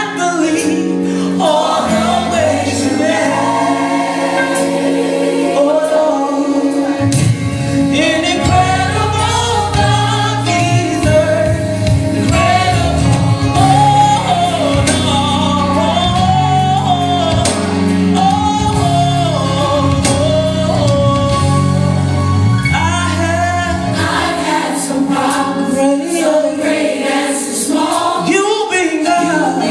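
Recorded gospel song: a choir singing over instrumental backing, the low end filling out from about seven seconds in until a little past twenty seconds.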